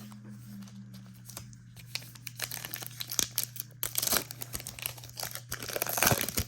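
Foil trading-card pack being torn open and crinkled by hand, with a run of crackling tears through the second half, over a low steady hum.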